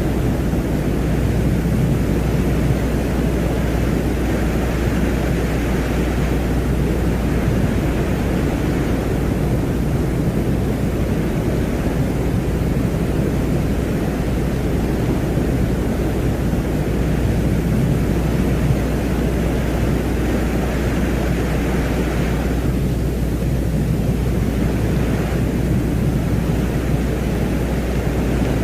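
A steady rumbling noise drone with a constant low hum underneath and a hissy upper layer that slowly swells and fades. It is an ambient space-sound soundscape presented as the 'sound of Venus'.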